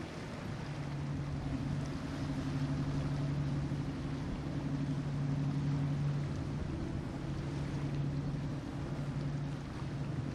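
Boat engine running with a steady low drone under wind and water noise. Its higher tone drops out past the middle, and the drone dips briefly near the end.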